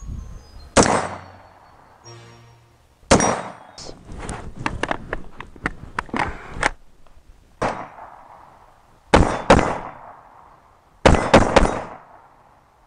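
AR-15 rifle fired repeatedly, in single shots and quick strings: one about a second in, a run of shots from about three to seven seconds, a pair near nine seconds, and four quick shots near the end.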